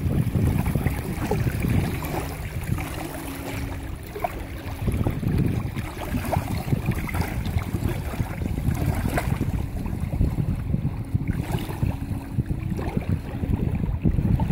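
Wind buffeting the microphone, with small choppy waves lapping. A faint low hum comes in twice.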